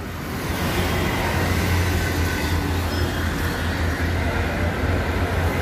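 Steady road traffic noise with a low engine rumble, no single event standing out.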